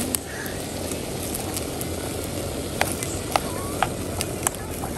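Sliced potatoes, mushrooms and duck breast frying in a camping pan over a small stove, with a steady sizzling noise. Sharp clicks of tongs against the pan come once near the start and then several times from about three seconds in, as the food is turned.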